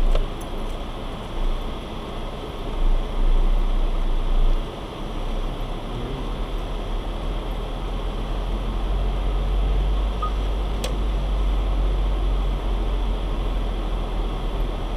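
Car running at low speed, heard from inside the cabin: a steady low engine and road rumble, with a few louder thumps in the first five seconds and a single sharp click about eleven seconds in.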